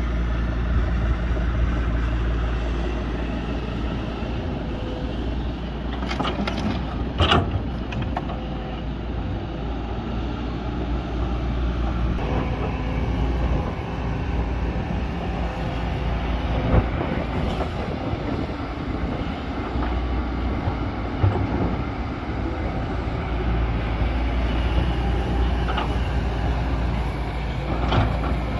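Large excavator's diesel engine running steadily under load, with a few sharp knocks or clanks, one cluster about seven seconds in and single ones later.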